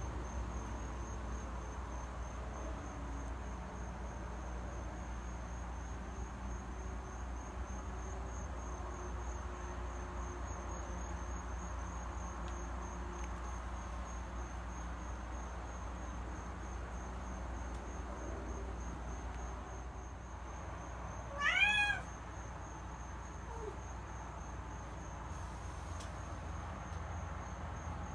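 A cat meows once, briefly, a little after the middle, over a steady low room hum and a faint, evenly pulsing high tone.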